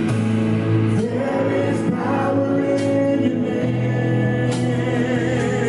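A choir singing a worship song with a live band, long held chords under a moving melody, with a few drum and cymbal hits.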